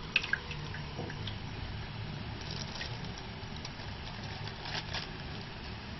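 Wet bambara-nut okpa batter being scooped by hand into a banana leaf: soft wet squelching with a few faint rustles of leaf and polyethylene, over a steady low hum.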